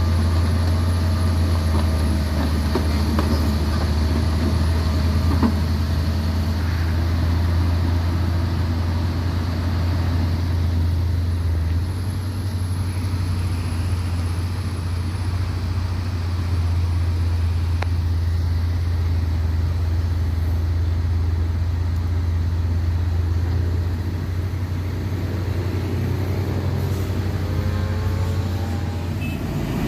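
Heavy diesel engine running under load with a steady low drone, rising in pitch as it revs up near the end.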